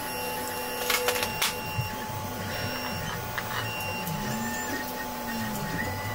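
Bar clamps clicking a few times about a second in as they are adjusted, over a steady machine hum with whining tones that slide up and down.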